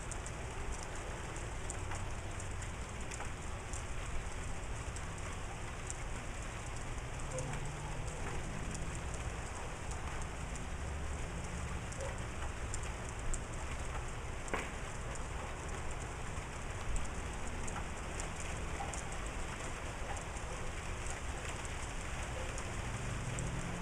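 Steady rain falling and pattering on surfaces, many small drop ticks over a continuous hiss, with a low rumble underneath.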